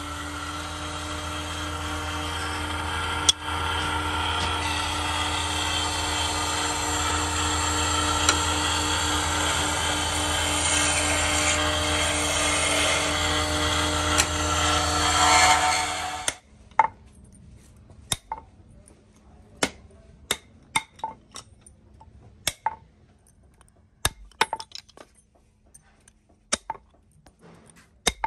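Motor-driven wood lathe running steadily with a humming drone, with a sharp click about three seconds in. The drone cuts off abruptly a little past halfway, leaving scattered light metallic clinks and taps as small steel rings are handled on a wooden block.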